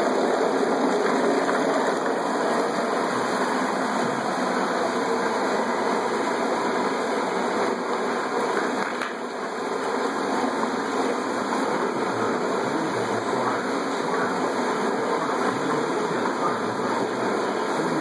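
A 1¼-horsepower garbage disposal running steadily, churning and circulating a large batch of margarita mix and ice through a homemade cooler-and-drum machine.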